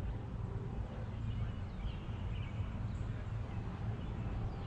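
Outdoor ambience: a steady low rumble of wind on the microphone, with a few faint bird chirps about two seconds in.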